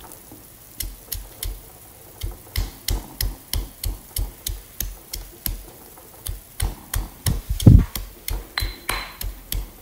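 Stone pestle pounding shallots, garlic and chili in a stone mortar (batu lesung): a steady run of strikes, about three a second, with a couple of short pauses and one much heavier strike about three-quarters of the way through. The pounding is coarse, leaving the aromatics in rough pieces.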